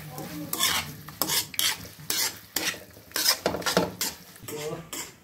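A spoon stirring pasta in a cream sauce in a pan on the stove, scraping against the pan in short, irregular strokes, about two or three a second.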